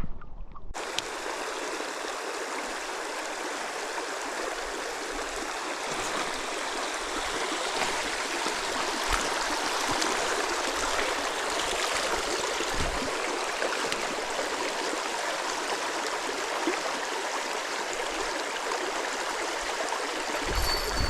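Stream water running steadily, an even rush that starts abruptly about a second in.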